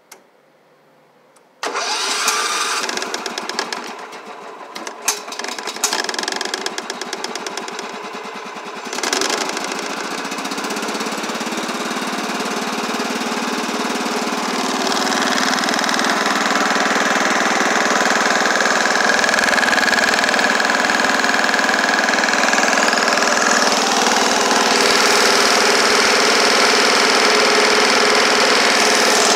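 A click, then about a second and a half in a Toro-badged Wheel Horse garden tractor's engine starts on choke after sitting a week. It runs rough and uneven for several seconds, then settles into a steady run that grows a little louder around the middle and again near the end.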